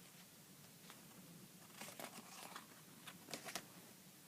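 Faint rustling and crinkling of a folded paper mini album being handled, in a few soft bursts about two and three and a half seconds in.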